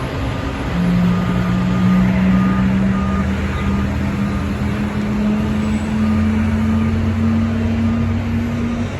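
An airport ground-support vehicle's engine running, its pitch rising slowly as it works, with a backup alarm sounding a run of short beeps.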